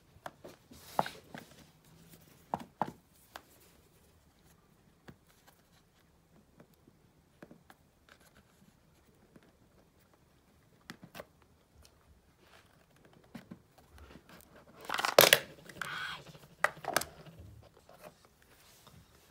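The cardboard box of an Apple Magic Mouse 2 being handled and opened: scattered light taps and rustles, then a louder burst of tearing and sliding about fifteen seconds in as the box comes open and the inner tray is pulled out.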